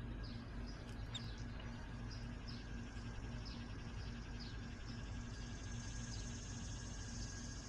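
Faint small-bird chirps, short falling notes about twice a second, over a steady low outdoor background rumble.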